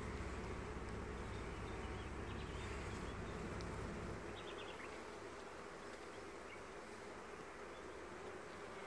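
Honeybees buzzing in a steady hum on a comb frame lifted from the hive, with a low rumble underneath that stops about four seconds in.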